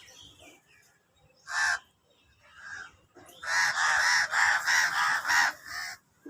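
A crow cawing: one caw, then a quick run of about seven caws in a row.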